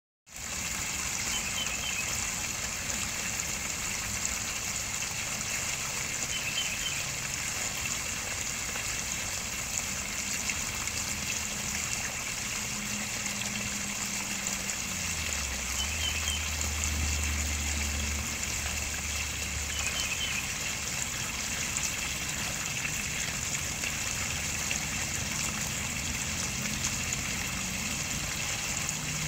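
Water steadily trickling and splashing into a koi pond, an even, unbroken splashing hiss, with a few brief high chirps over it.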